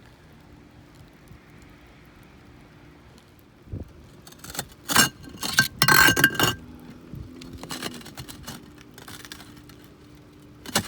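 Broken roof tile pieces clinking and scraping against each other as they are worked loose and pulled out by hand: a quiet start, then a run of clattering hard knocks with a ringing chink about halfway through, a few lighter clicks, and another short clatter at the end.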